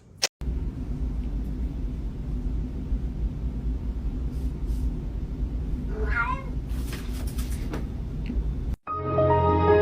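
A cat meows once, a wavering call about six seconds in, over a steady low rumble. A short sharp click sounds right at the start.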